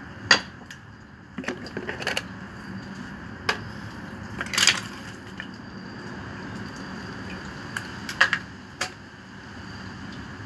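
Irregular clicks and snaps of pliers and small hand tools working an electrical wire at a water pump's terminal box, the sharpest about halfway through, over a steady background hum.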